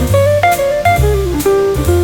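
Background music: a jazzy instrumental with a plucked guitar melody over bass and a drum kit.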